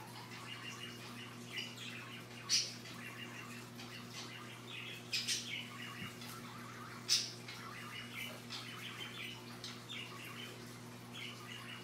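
Scarlet macaw chattering softly in short chirps while preening, with a few sharp clicks, two of them louder, over a steady low hum.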